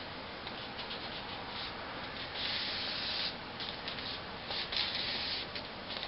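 Fingers rubbing and pressing along paper as the top surface of a paper-airplane wing is smoothed down onto tape: papery scraping strokes, with one longer, louder rub about two and a half seconds in.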